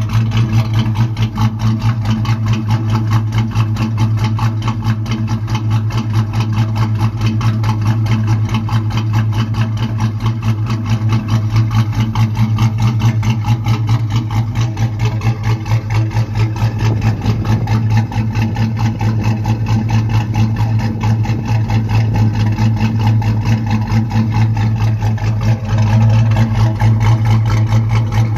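1994 Ford Mustang SVT Cobra's 5.0-litre V8, fitted with a Steeda 19 camshaft, idling cold with a steady, even exhaust pulse and no revving. It grows a little louder near the end, heard close to a tailpipe tip.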